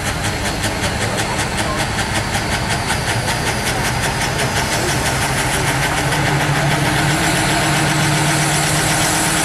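Compact diesel pulling tractor's engine running at the start line with a fast, even diesel clatter. About two-thirds in the revs build, the engine gets a little louder and a high whine comes in.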